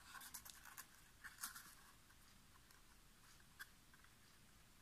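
Faint handling of a small cardstock box: light paper rustles and taps in the first two seconds, then one small click a little past halfway, otherwise near silence.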